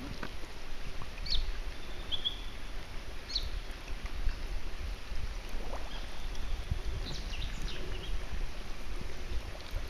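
Outdoor ambience: a steady low rumble with uneven swells, and a few brief high chirps from birds scattered through it.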